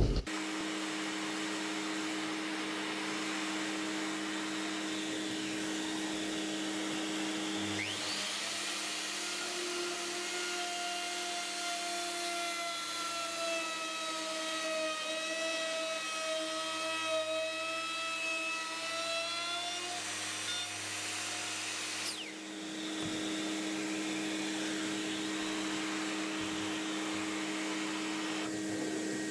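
Dust extractor running steadily. From about eight seconds in to about twenty-two seconds in, a router with a straight bit and guide bush cuts a round hole through a wood blank along a template: a whine that sags slightly under load and recovers, then winds down.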